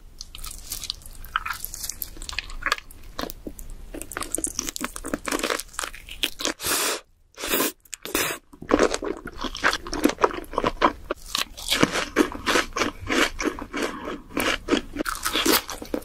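A person biting into and chewing a sauce-glazed grilled chicken leg: a dense run of mouth smacks and clicks, with a short break just past halfway.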